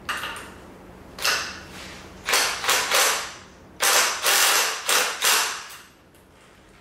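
Cordless impact wrench run in about eight short bursts on the top nut of a front strut held in a spring compressor, the bursts coming closer together after the first couple of seconds.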